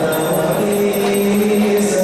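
Devotional kirtan for a guru aarati: voices singing in unison, holding long notes, over jingling metallic percussion.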